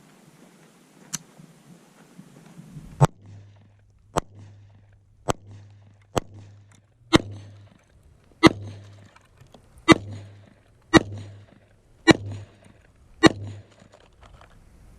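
Ten single shots from a Tippmann M4-22 .22 LR rifle, fired one at a time a little over a second apart and starting a few seconds in.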